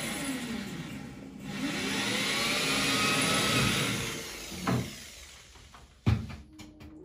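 Power drill boring into bathroom wall tile, running in two spells with its pitch sliding down and then up as the speed changes, stopping after about four and a half seconds. Then two sharp knocks.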